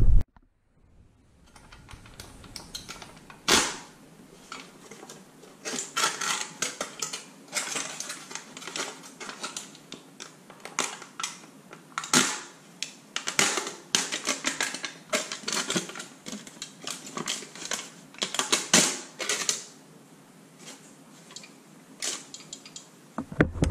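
Aluminum foil crinkling and crackling as a welded foil pouch is pulled open and flattened by hand: irregular bursts of sharp crackles, with one sharp crackle a few seconds in and dense crinkling through most of the rest.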